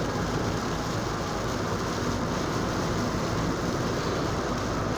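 Steady road noise inside a moving car's cabin: tyres and engine running at highway speed on a sleet-wet road.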